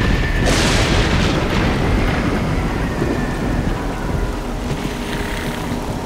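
Cartoon thunderstorm sound effects: steady heavy rain with a crack of thunder about half a second in that rumbles on.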